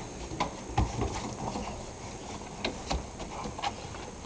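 Dogs' claws clicking and tapping on wooden deck boards in an irregular patter as a Labrador puppy and a Golden Retriever walk about, with a duller knock just under a second in.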